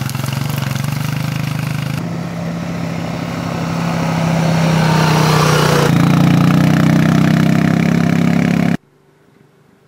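ATV engine running, with the sound changing abruptly twice and growing louder around the middle, then cutting off suddenly near the end.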